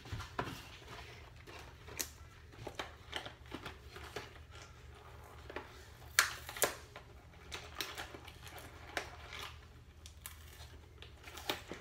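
A small cardboard box being pried and torn open by hand: scattered crinkles, rips and light taps, with two sharper tears about six seconds in, over a faint low steady hum.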